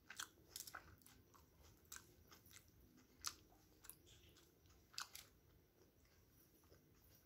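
Faint chewing of steamed chicken momos: soft, wet mouth clicks every second or so, the loudest about three and five seconds in.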